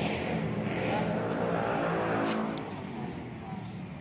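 Suzuki Swift engine running through an aftermarket racing exhaust, revved once: the note rises and falls, then settles back to a steady idle a little under three seconds in. Two light clicks sound just after the middle.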